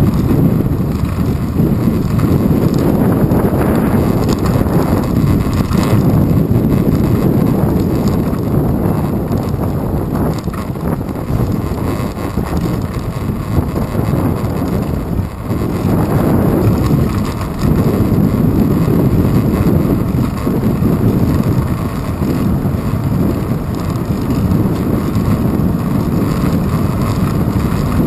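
Wind buffeting the microphone of a handlebar-mounted GoPro Hero 2 on a moving bicycle ridden into a strong wind: a loud, uneven low rumble that swells and eases.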